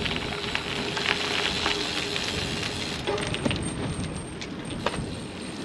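Road bike tyres rolling over rough pebbled pavement, a steady crackling hiss with scattered small clicks, and wind rumbling on the microphone of the moving bike.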